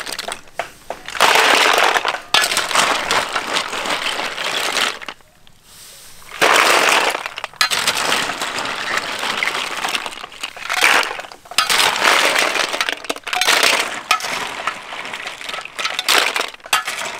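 Hard snail shells clattering and scraping against a large metal wok as they are stirred with a metal spatula and a wire-mesh strainer, in repeated bouts with a short lull about five seconds in. Near the end, strained snails are tipped clattering into a metal basin.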